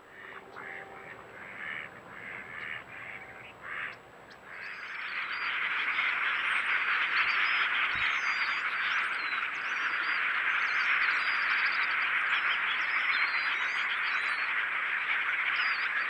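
A run of short calls in the first few seconds. Then, from about four and a half seconds in, a huge flock of small birds calling all at once: a dense, steady chatter with high chirps and whistles over it.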